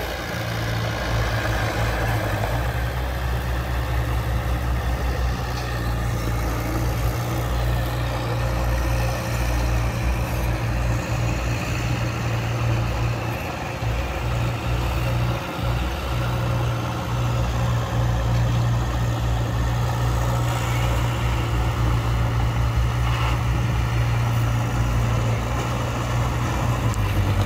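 Diesel engines of small crawler bulldozers running steadily while pushing earth, with other heavy earthmoving machinery running alongside: a continuous low drone.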